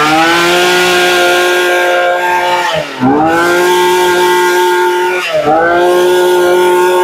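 Tanaka-built Hitachi 24cc two-stroke brush cutter engine revving to high speed and running hard, twice dropping off the throttle and picking straight back up, about three seconds in and again two seconds later.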